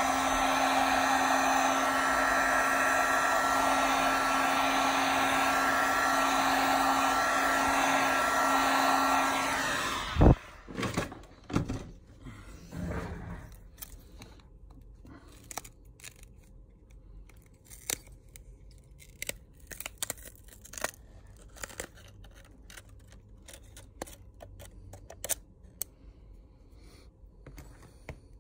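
Heat gun blowing steadily with a steady whine in it, heating the cracked screen to soften its adhesive; it cuts off about ten seconds in. A single knock follows, then scattered light clicks and taps as the phone's parts are handled.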